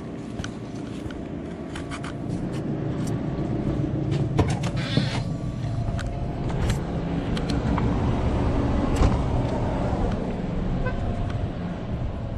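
Road traffic: car engines running, growing louder toward the middle, with scattered clicks and knocks.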